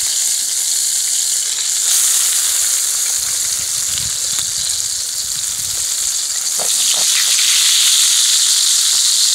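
Wild hog bacon frying in hot fat in a cast-iron skillet, with a steady sizzle that grows a little louder near the end.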